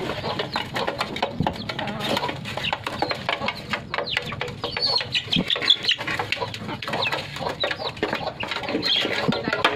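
Chickens and puppies eating rice from a shared rubber feeder: hens clucking over many quick, irregular clicks of pecking beaks and chewing mouths.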